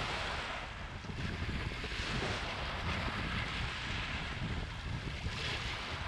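Small waves breaking and washing over a pebble beach, surging in about three times with a fizzing hiss, over a steady low rumble of wind on the microphone.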